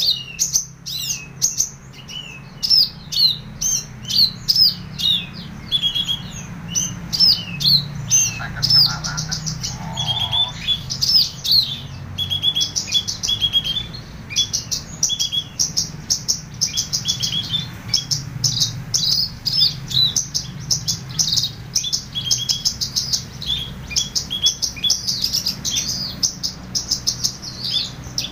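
Horsfield's bushlark (branjangan) singing without pause, a fast, varied stream of short high chirps, slurred notes and trills.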